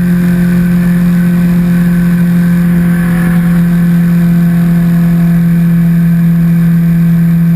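Sport motorcycle engine running at a steady speed while riding, its pitch holding constant, with wind and road noise over it.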